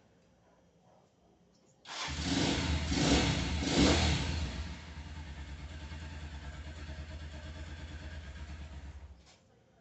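Motorcycle engine starting about two seconds in, revved up briefly twice, then idling steadily for about four seconds before it is switched off and cuts out suddenly.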